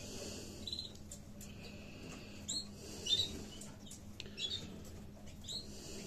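Canary nestlings begging for food: thin, high squeaky cheeping, with a few short louder chirps breaking out every second or so.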